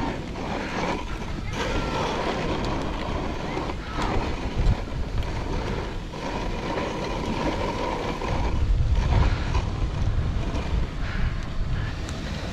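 Wooden dog sled's runners sliding over packed snow while a dog team pulls it along, with wind rumbling on the microphone, heaviest about nine seconds in.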